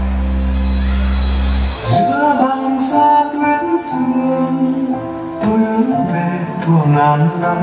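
Male vocalist singing a slow Vietnamese Christmas ballad with band accompaniment. A held instrumental chord gives way about two seconds in to the voice, with a few light percussion strikes.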